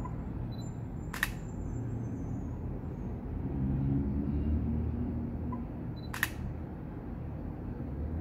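Shutter of a Canon EOS R mirrorless camera firing twice, about five seconds apart, each a single sharp click, over a steady low background rumble.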